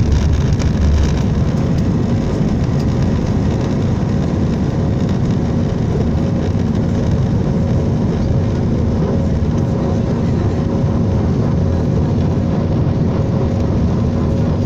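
Airbus A319's CFM56 turbofans at takeoff thrust, heard inside the cabin over the wing: a loud, steady engine noise with a steady hum through lift-off and the initial climb. It is a little louder in the first second or so, while the aircraft is still on the runway.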